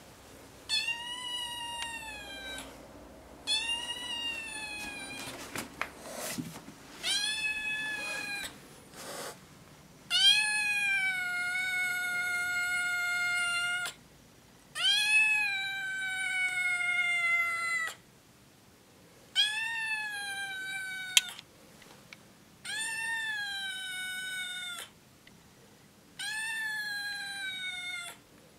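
A young kitten meowing over and over: about eight long, high calls with short pauses between, each rising at the start and sliding slightly down, the longest held for three or four seconds.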